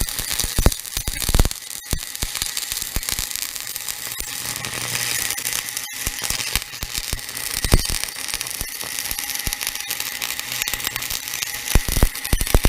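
Welding arc crackling and hissing steadily, with scattered sharp pops and clicks.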